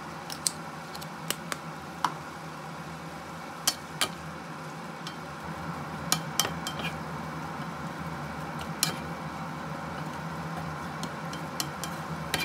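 Wooden spatula stirring shrimp and glass noodles in a nonstick frying pan, with irregular sharp knocks of the spatula against the pan over a steady sizzle.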